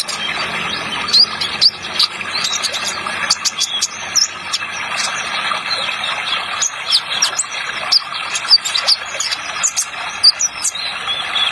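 Van Hasselt's sunbird (kolibri ninja) singing in rapid, high, scattered chirps and short trills, the 'trotol' style. Underneath is a steady hiss of running water.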